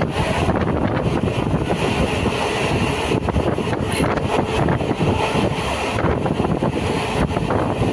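Local electric train running at speed, heard from on board: a steady rumble of wheels on the track, with wind buffeting the microphone.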